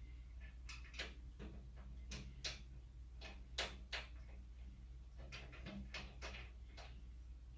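Faint, irregular clicks and knocks of screws and a tool against the metal rack frame, as M6 screws are fitted to join the crossbars to the rack's sides.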